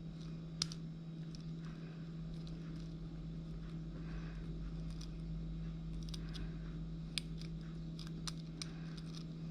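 Faint, sparse metallic clicks and scratches of a sewing machine needle working the pins inside a 7-pin padlock held under light tension, over a steady low hum.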